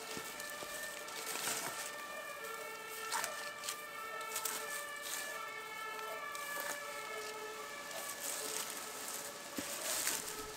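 Spruce branches rustling as they are handled and laid by hand over a wooden hedgehog house, with a few short scratchy rustles spread through. Behind them, a steady whine of several pitches, wavering slightly.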